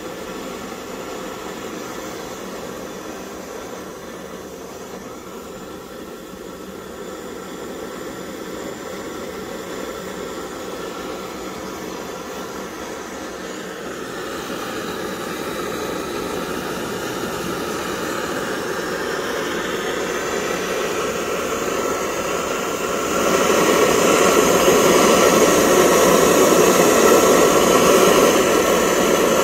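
Pressurised kerosene-type stove burner running on waste cooking oil, its vaporised-fuel flame giving a steady rushing hiss. The noise grows slowly louder and steps up sharply about three-quarters of the way through.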